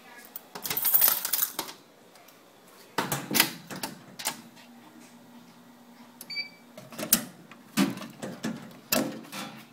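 Irregular clicks and clattering knocks in three clusters, near the start, about three seconds in and in the last few seconds, with a faint steady hum between them.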